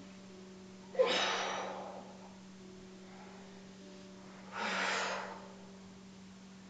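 A woman's audible Pilates breathing, two breaths: a sharp, forceful exhale through the mouth about a second in, fading away, and a second, softer breath around the five-second mark, paced to lifting and lowering opposite arm and leg.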